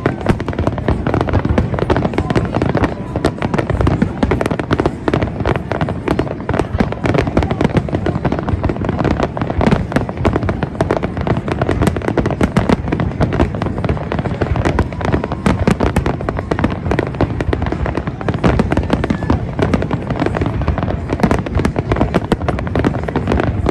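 Fireworks going off in a rapid, continuous barrage of bangs and crackling, many reports a second with no pause.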